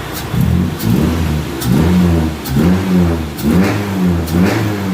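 Honda Civic Ferio's four-cylinder engine being blipped again and again on the throttle, about six quick revs rising and falling, each one starting with a sharp click, while it is tuned after a cylinder-head porting job.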